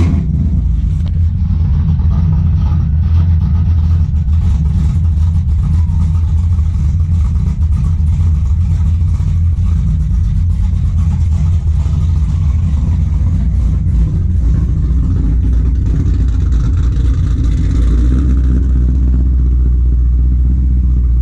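Cammed V8 of a Pontiac Trans Am WS6 idling loudly with an uneven, choppy beat through its exhaust, a little steadier near the end.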